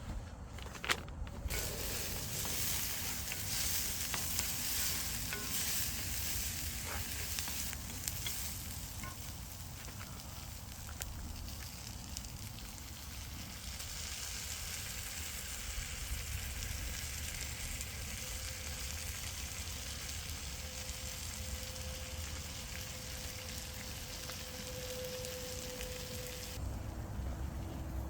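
Food sizzling and frying in a hot pan, a steady hiss that starts about a second and a half in and stops abruptly near the end.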